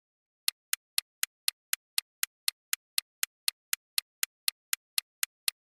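Countdown-timer ticking sound effect: sharp clock-like ticks about four a second, alternating louder and softer like a tick-tock, starting about half a second in.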